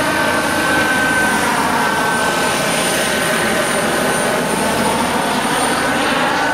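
Giant radio-controlled scale Kamov Ka-32 coaxial-rotor helicopter in flight: the steady noise of its two counter-rotating rotors and drive, with a thin high whine held throughout and its pitch drifting slightly as it moves through the sky.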